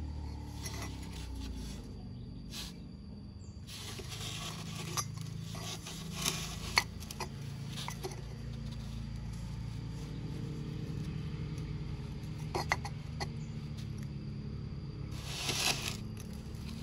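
Cut sections of thin-walled steel pipe handled and fitted together: scattered clinks and scrapes of metal on metal and on a wooden bench, the sharpest clink about seven seconds in and a longer rubbing scrape near the end.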